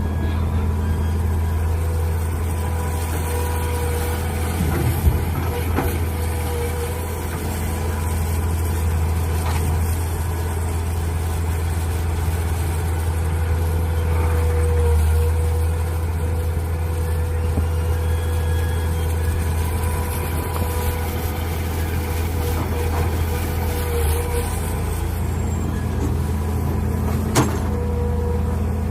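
Mini excavator's diesel engine running steadily under digging work, with two sharp knocks, one about five seconds in and one near the end.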